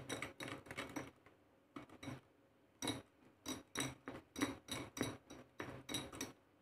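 A spoon stirring thick Oreo biscuit batter in a glass bowl, scraping and knocking against the glass in repeated strokes, with a short pause about a second in, then about two to three strokes a second.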